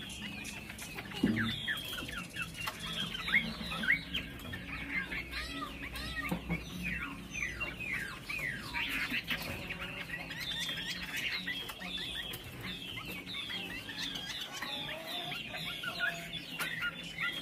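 Chinese hwamei singing: a long, unbroken run of quick, varied whistled notes, many of them sweeping downward.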